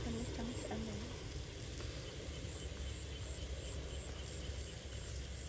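Slices of cow udder sizzling on a charcoal grill grate as a faint, steady hiss, with a few light clicks as forks turn the pieces.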